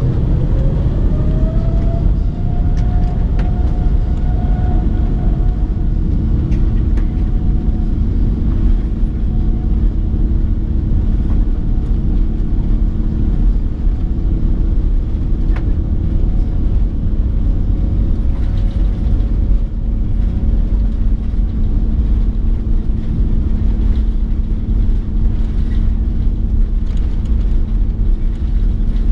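Airbus A330-900neo's Rolls-Royce Trent 7000 turbofans spooling up for takeoff, heard inside the cabin: a whine that rises in pitch over the first couple of seconds and then holds, over a deep steady rumble as the aircraft accelerates down the runway.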